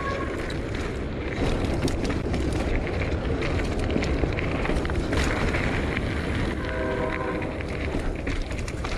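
Full-suspension mountain bike rattling and clattering down a rough, rocky dirt trail: tyres hammering over rocks and roots, the frame and chain knocking, with a steady rumble of wind and ground noise on the mounted camera's microphone.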